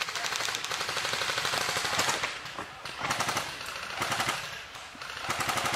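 Airsoft guns firing on full auto: a rapid, even rattle of shots in several bursts, the longest about two seconds at the start, with short breaks between the rest.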